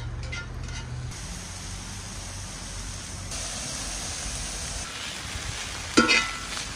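Chicken sizzling steadily in a cast-iron skillet over a wood fire. About six seconds in, metal tongs clatter and scrape against the pan with a short metallic ring.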